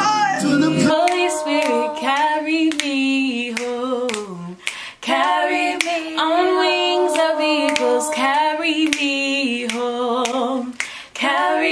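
Women singing a gospel worship song with a wavering vibrato. The low backing music drops out about a second in, leaving the voices almost unaccompanied.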